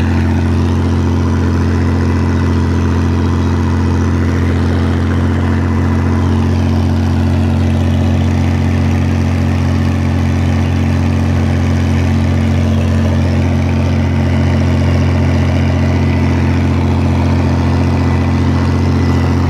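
Oliver 1655 tractor's six-cylinder diesel engine running at a steady, unchanging speed under load as it pulls a cultimulcher, heard from the tractor seat.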